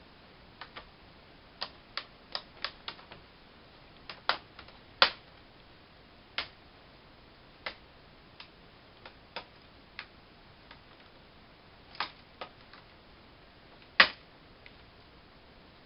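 Plastic snap clips of a Toshiba Satellite L305 laptop's screen bezel popping loose as the trim is pried off along its edge: a run of sharp, irregular clicks and snaps, two of them much louder, about five seconds in and near the end.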